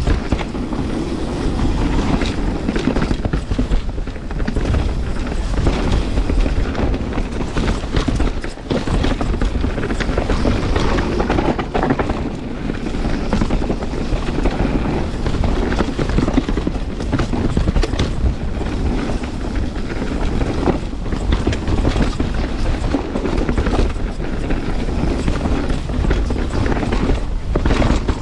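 Full-suspension mountain bike descending a rough, chunky trail section: tyres rumbling over rocks and roots with constant rattling and knocking from the bike, and heavy low rumble on the microphone.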